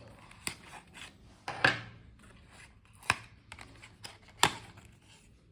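A screwdriver kit and its packaging being handled: four sharp clicks about a second apart, with light rustling and scuffing between.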